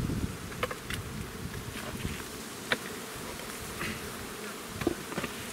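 Honey bees buzzing in a swarm around an opened hive, with a few sharp wooden clicks, the loudest about three seconds in and again near the end, as a hive body glued down with propolis is pried loose and lifted.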